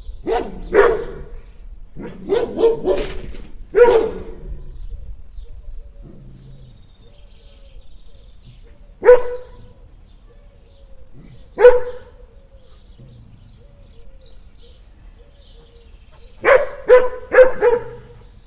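Two dogs barking in bursts: a run of barks in the first four seconds, then single barks around nine and twelve seconds in, and a quick run of three near the end.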